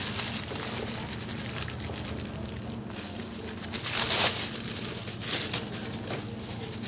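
Plastic gloves and plastic film crinkling and rustling as a wrapped sushi roll is squeezed and shaped by hand, loudest about four seconds in. A low steady hum runs underneath.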